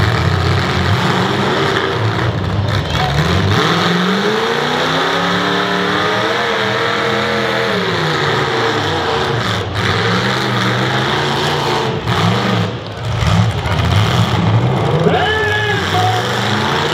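Several demolition derby cars' engines running and revving, their pitch rising and falling as the cars accelerate and slow on the dirt.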